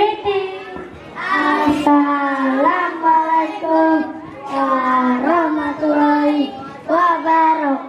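Young children singing a song into a microphone, in long held notes that step up and down in pitch.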